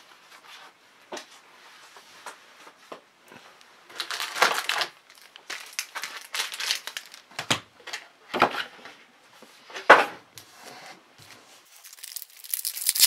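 Foil trading card packs crinkling and rustling in sharp, irregular bursts as they are handled and pulled from a cardboard hobby box. Near the end, a foil pack wrapper is torn open.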